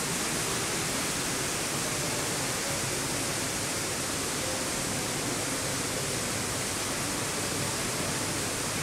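Steady rushing of falling water from an ornamental waterfall, an even hiss that does not change.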